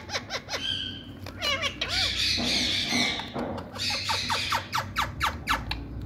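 Indian ringneck parakeets calling: quick runs of short, sharp chattering notes at the start and near the end, with two harsh screeches of about a second each in the middle.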